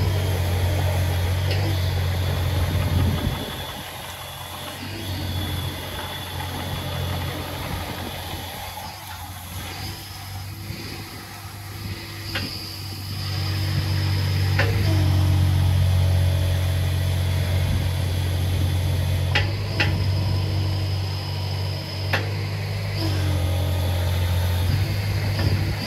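Volvo EC18E mini excavator's three-cylinder Volvo diesel engine running steadily, its sound falling away about three seconds in and swelling again around the middle as the boom and bucket are worked. A few short, sharp clicks come in the second half.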